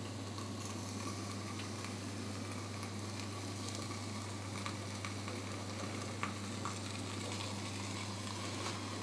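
Pork fat sizzling in a red-hot iron flambadou (fat-dripping cone), with scattered sharp crackles over a steady low hum.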